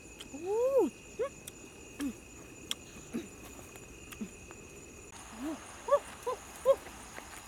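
An animal's short calls, each rising and falling in pitch: one longer call about half a second in, then single fainter calls every second or so, and a quick run of three near the end.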